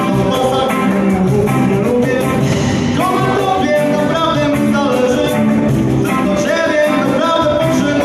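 Live rock band playing a 1990s Polish rock cover: electric guitar and drums with a steady cymbal beat, and a voice singing over them.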